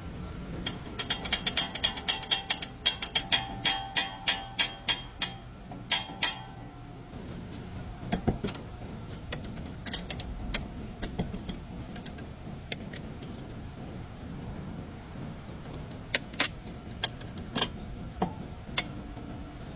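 A quick run of sharp, ringing metallic clicks lasting about five seconds, followed by scattered single clicks and knocks.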